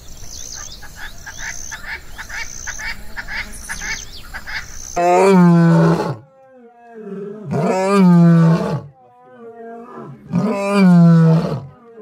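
Chirping insects and birds for about five seconds, then a male lion roaring: three loud, drawn-out roars about two and a half seconds apart, with quieter grunts between them.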